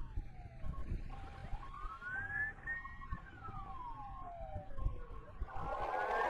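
Emergency-vehicle siren sounding a slow wail, its pitch climbing, holding briefly at the top, then sliding down over a few seconds, with a faint steady tone beneath. A louder rough noise builds near the end.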